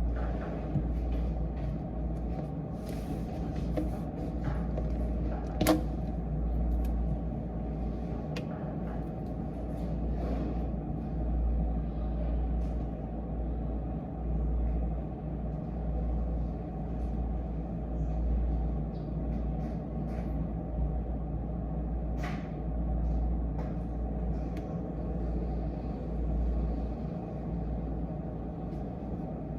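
Steady low rumble of room ambience with scattered light clicks and taps, the sharpest about six seconds in and another about twenty-two seconds in.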